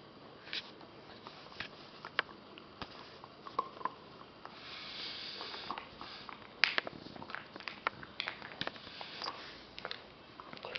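An Alaskan Malamute puppy gnawing on a bully stick: irregular sharp clicks and crunches of its teeth on the chew, with a breathy sniffing sound about halfway through.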